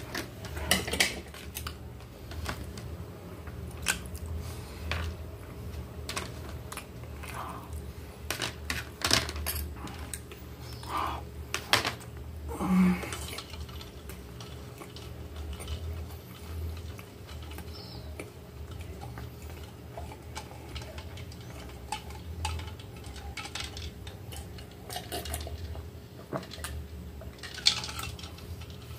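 Metal cutlery scraping and clicking against a plastic platter, a run of short clicks and knocks in the first half, then quieter.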